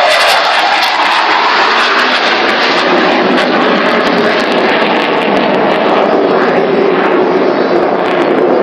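Aircraft flying past: a loud, steady rush of engine noise whose pitch slides slowly downward.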